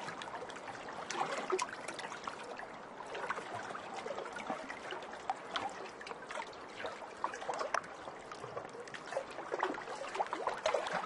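Water trickling and gurgling: a steady wash of sound dotted with many small splashing ticks.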